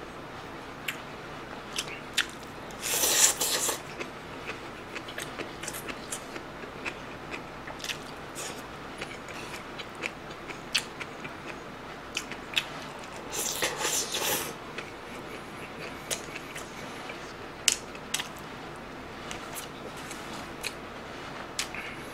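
Close-miked eating sounds: chewing and mouth noises with many short sharp clicks. Two louder, noisy stretches of about a second each come about three and fourteen seconds in.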